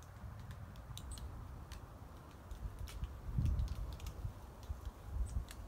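Serotinous pine cones in the tree above clicking as they open in the heat, many irregular sharp clicks scattered through. A low rumble swells about three and a half seconds in and again near the end.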